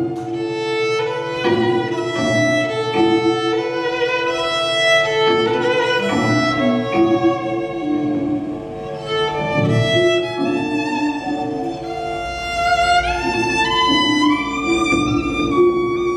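Live ensemble music with violin and cello prominent, playing sustained, overlapping notes. Several lines glide upward about twelve seconds in.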